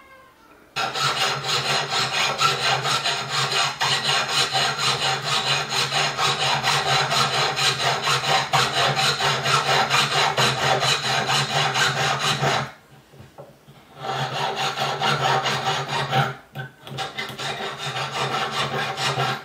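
Jeweler's saw cutting through a coil of metal wire with rapid back-and-forth strokes, the blade rasping through the coils against a wooden bench pin. The sawing stops about two-thirds of the way in and starts again a second later.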